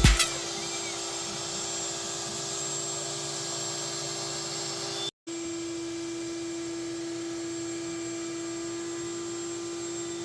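A high-speed electric motor running steadily with a whine and a rushing hiss. It cuts out briefly about five seconds in and comes back a little lower in pitch.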